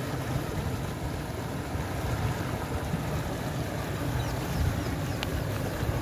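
Steady rush of water pouring out of a culvert and churning into a canal.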